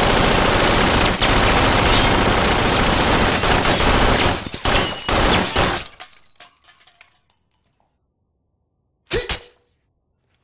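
Automatic gunfire in a film soundtrack: a long, unbroken stream of rapid shots for about four and a half seconds, then a few shorter bursts. Falling debris tinkles and clatters as it dies away, and a single short loud hit comes about nine seconds in.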